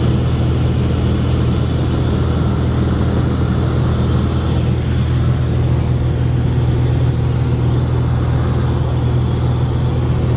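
Light single-engine propeller aircraft in flight, heard from inside the cabin: the piston engine and propeller make a steady, unchanging low drone.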